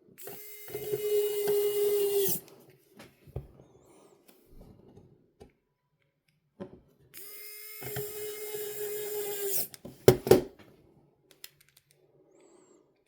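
A small electric screwdriver runs twice, each time with a steady whirr for about two and a half seconds that stops suddenly, as the player is screwed back together. A few sharp clicks follow just after the second run.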